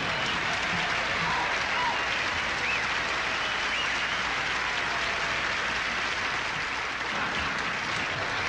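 Audience applauding steadily, a dense wash of many people clapping.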